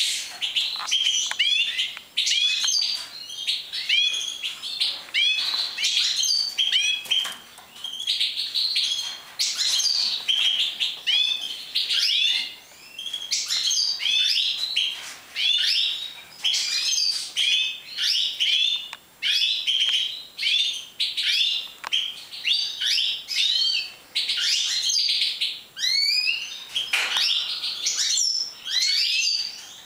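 Caged European goldfinches of the large 'major' form singing and twittering: a continuous stream of quick, rising chirps and trills, overlapping with barely a pause.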